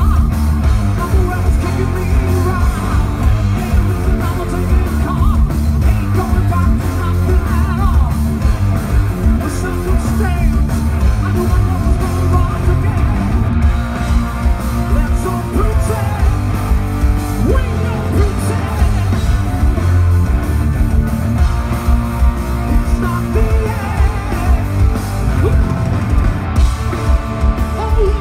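Hard rock band playing live through a large outdoor PA, loud and dense: drums, bass guitar, electric guitars and keyboards, with a singer's voice over them.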